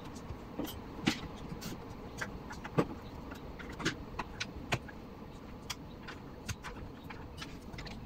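Scattered sharp clicks and knocks from hands handling parts inside an open Dell OptiPlex 9020 small-form-factor desktop case while fitting DDR3 RAM sticks into their slots. The loudest knocks come about a second in and just under three seconds in, over a faint steady hum.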